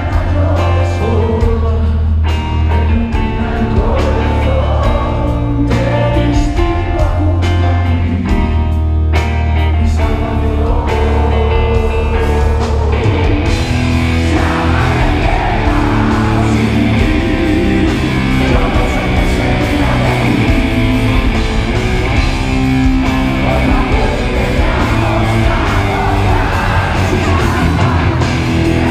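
A heavy metal band playing live, with a male singer over electric guitars, bass and drums. About halfway through the sound fills out, with steady cymbals from then on.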